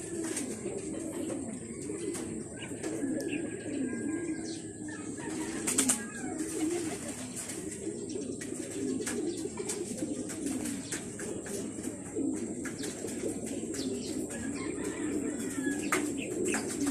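Racing pigeons cooing continuously, with scattered clicks and a brief flurry of wing flaps about six seconds in as birds shift on the wire cage.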